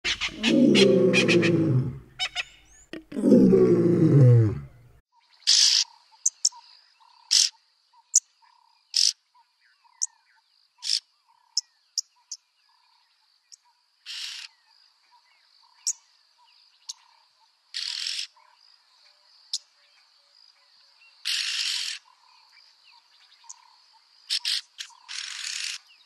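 Yellow-billed oxpeckers calling: harsh hissing rasps, some brief and some drawn out for about a second, repeated irregularly over a steady high insect drone. Two deep, wavering sounds fill the first five seconds before the calls begin.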